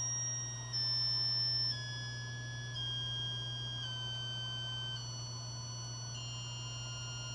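Purtest PT-8 UV sterilizer control box's electronic buzzer playing its reset tune while the reset button is held: about seven steady beeping tones, each about a second long, stepping down in pitch one after another. The tune resets the 12-month UV lamp counter.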